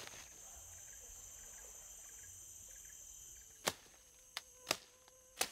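Faint, steady high-pitched buzzing of rainforest insects, then four sharp knocks in the second half as a machete strikes wood.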